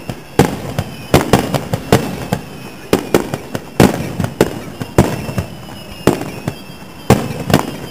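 Fireworks display: aerial shells launching and bursting in quick succession, a dense, irregular run of sharp bangs, often two or three a second.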